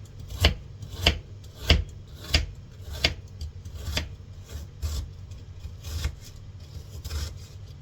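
Knife chopping fruit on a cutting board, about one and a half strokes a second, then slower and softer after about three seconds.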